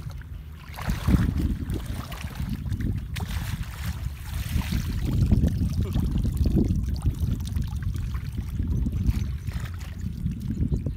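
Shallow muddy water sloshing and splashing as bare feet wade through it, with a plastic basket scoop dipped in and lifted out and water draining from it.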